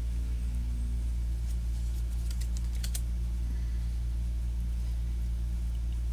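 Tarot cards being picked up and laid down on a cloth-covered table, making a few light clicks and taps about one and a half to three seconds in, over a steady low hum.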